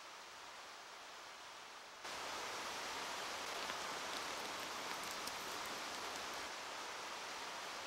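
Steady rushing noise of falling water, which jumps much louder about two seconds in, with a few faint ticks around the middle.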